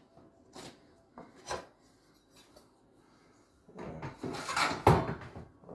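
Hand tools being handled and scraped against a drywall ceiling: a few light clicks, then a louder stretch of rattling and scraping with one sharp knock about five seconds in, as a nail is tapped up into the ceiling to find a roof truss.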